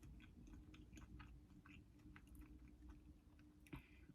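Faint chewing close to the microphone: soft, scattered mouth clicks of food being chewed, over a low steady hum.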